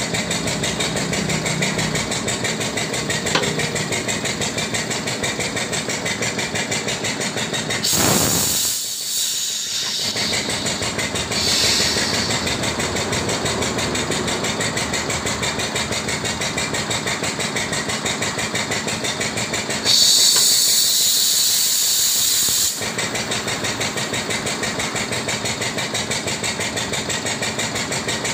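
Pneumatic impact tyre press running with a steady, rapid mechanical pulsing, broken twice by bursts of compressed-air hiss: once about eight seconds in and again about twenty seconds in, the second and loudest lasting nearly three seconds.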